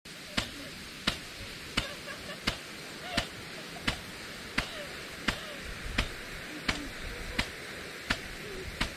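Impact sprinkler on a tripod ticking as its arm strikes the water jet, evenly about three clicks every two seconds, over the steady hiss of the spray.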